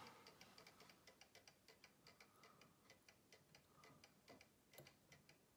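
Faint, quick, even ticking from the running movement of a Breguet-style Paris clock, with two slightly louder clicks about four and a half seconds in.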